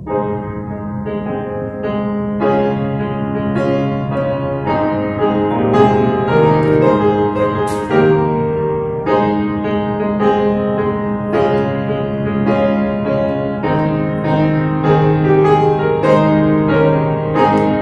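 Grand piano playing a hymn introduction in full chords, a steady series of struck chords before the singers come in.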